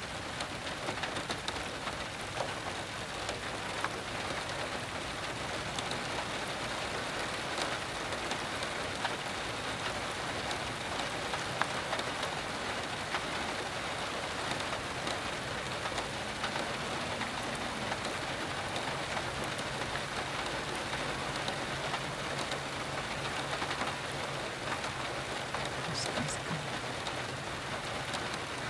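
Heavy rain falling on river water and the trees along its bank, a steady dense hiss with scattered drop taps.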